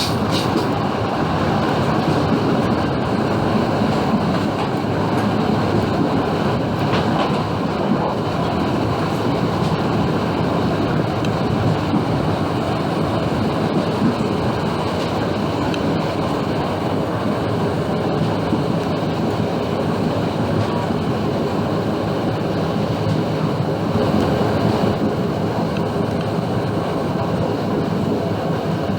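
EMD GT18B diesel locomotive with its eight-cylinder 645 two-stroke engine hauling a passenger train at a steady run, heard from the first car behind it, its engine and the wheels on the rails making a steady noise.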